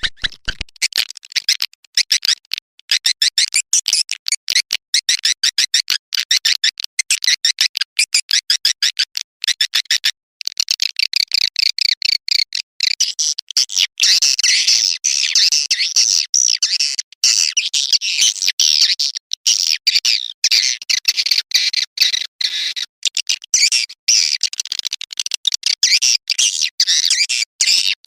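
Swiftlet-farming call lure: recorded edible-nest swiftlet twittering, played to draw swiftlets into a swiftlet house. High chirps come in quick, even pulses at first, then thicken into a dense continuous chatter from about ten seconds in.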